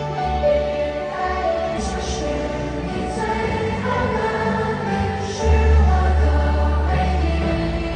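Live pop concert music over a stadium sound system: sustained chords with singing voices, and a heavy bass that swells in about five and a half seconds in.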